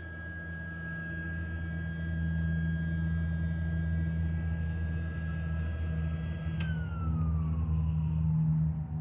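A small electric power tool, such as a grinder, running with a steady high whine. About two-thirds of the way in it is switched off with a click and spins down, its pitch falling steadily. A steady low hum runs underneath.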